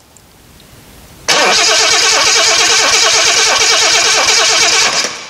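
Jaguar 4.2-litre DOHC straight-six, converted to carburettors, being cranked over by its starter motor in an attempt to start it. The even, rhythmic cranking starts about a second in, runs for about four seconds, and stops abruptly.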